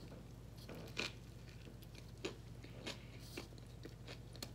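A person chewing and biting food close to the microphone: faint, irregular crunches and mouth clicks every half second or so.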